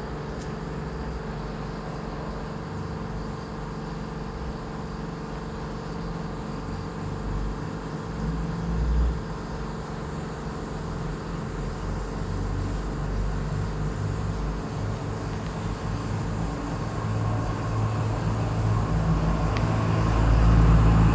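A steady low machine hum and rumble. It swells briefly about nine seconds in and gets louder near the end.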